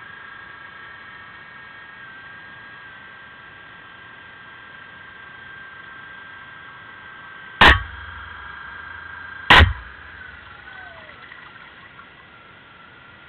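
Two sharp underwater bangs about two seconds apart, model depth charges going off near a model U-boat. Between and around them runs a steady high whine from the model boats' small electric motors.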